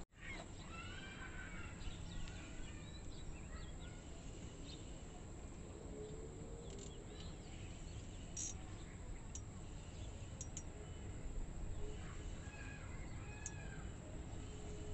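Birds chirping in short calls over a steady low outdoor background hiss, with a few faint high ticks in the second half.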